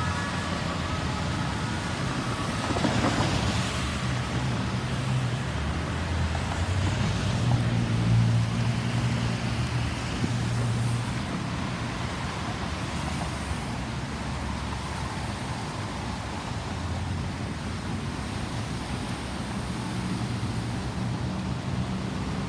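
Road traffic: motor vehicles passing with engines running and tyre noise, with a louder pass about three seconds in.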